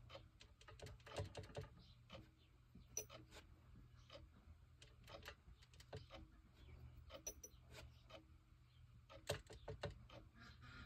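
Near silence with faint, irregular clicks and taps of a paintbrush working cadmium yellow watercolor paint in a metal palette tin and a small ceramic mixing dish.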